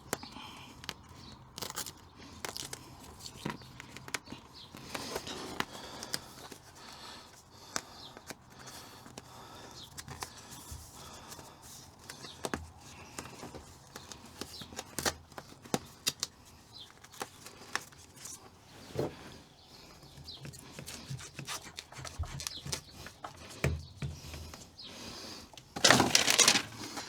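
Backing paper rustling, crinkling and tearing as it is peeled off self-adhesive sound-deadening sheets, with scattered taps and knocks. A louder burst of rustling and tearing comes about a second before the end.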